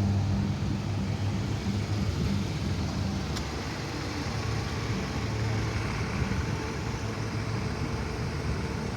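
Car engines idling in a queue of stopped traffic: a steady low engine hum over road noise.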